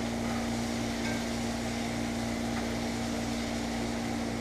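Zucchini, onion and salt pork frying in a skillet: an even sizzle over a constant electrical hum, with a couple of faint clicks as a fork turns the food in the pan.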